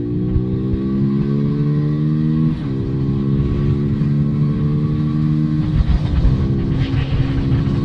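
Beta RR 125 four-stroke single-cylinder motorcycle engine, its exhaust open with the dB killer removed, pulling through the gears: the pitch climbs steadily, then drops sharply at each of two upshifts, about two and a half and six seconds in.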